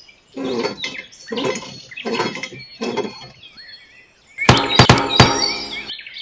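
Hand pump being worked: four rhythmic strokes, each about three-quarters of a second apart. These are followed, a little past halfway, by a louder burst of clattering knocks with some high chirping.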